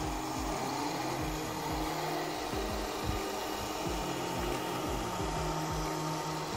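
Music with a steady beat, about three beats a second, over a continuous whirring, grinding noise.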